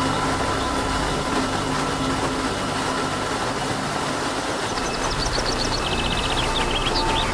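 Water rushing steadily over a small rocky waterfall, a constant loud hiss with a low rumble under it, with birds chirping in quick trills about five to seven seconds in.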